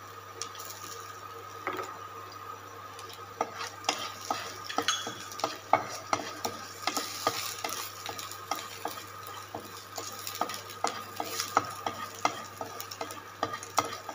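Wooden spatula stirring cashew nuts, chopped ginger and curry leaves in a non-stick kadai, over the light sizzle of frying in oil. From about three seconds in, the spatula taps and scrapes against the pan repeatedly.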